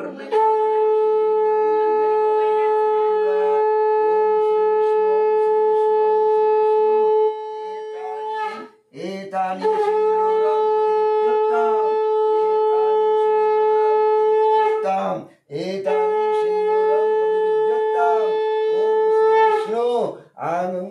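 Conch shell (shankha) blown in three long, steady blasts, with short breaks between them. The first blast drops in strength about seven seconds in before it ends.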